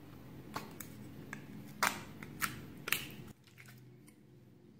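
A heart-shaped plastic slime tub handled and its snap lid prised open: a series of sharp plastic clicks and cracks, the loudest about two and three seconds in.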